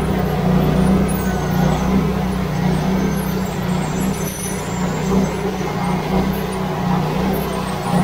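Chainsaw with a very long bar ripping lengthwise through a large sugar maple log, its engine running steadily at high revs under load.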